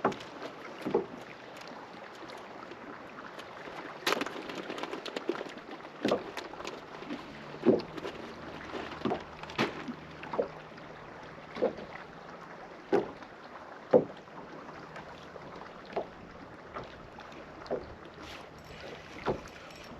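Small waves slapping against the hull of a fishing boat: short hollow knocks every second or two over a steady wash of wind and water.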